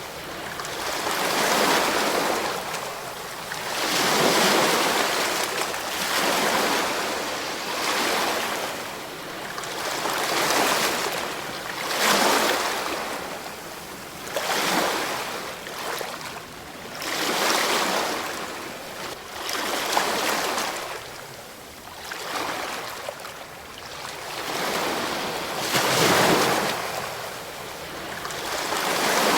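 Ocean waves breaking on a shore, a steady rushing hiss that swells and ebbs with each wave, roughly every two to four seconds.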